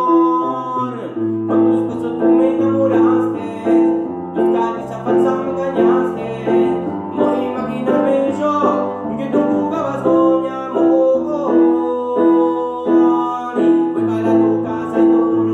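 Electronic keyboard played with both hands in a piano sound: a repeated mid-range note pulses about twice a second over bass notes that change every second or so, an instrumental stretch between sung lines.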